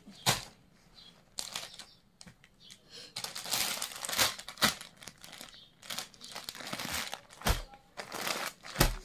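Clear plastic packaging bag crinkling in irregular bursts as a packed suit set is handled and opened, with two soft thumps near the end.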